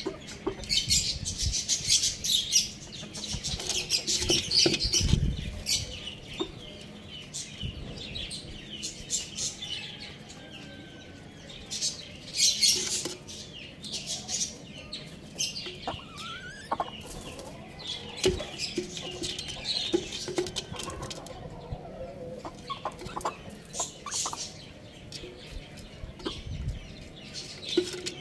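A young rooster pecking and rummaging with its head inside a clay pot: a dense run of short scratchy pecks and rustles, with a few clucks.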